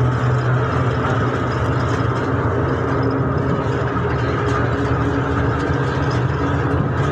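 Bus engine running with a steady low drone, heard inside the passenger cabin.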